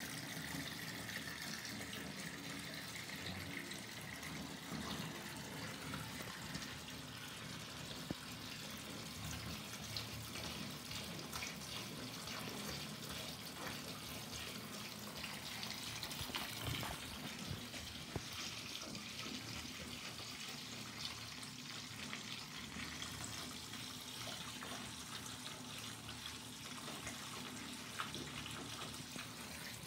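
Steady hiss of water running from a bathtub tap, with a few light clicks now and then.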